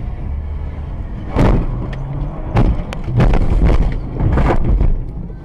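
Car collision heard through a dashcam microphone inside the car: low engine and road rumble, then a loud impact about a second and a half in, followed by several more loud bangs and crunching over the next three seconds.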